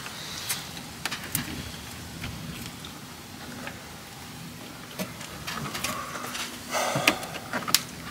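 Scattered light clicks and small knocks from a newly mounted van side step (running board) as a bare foot presses and shifts on it. The step gives a little flex under the weight.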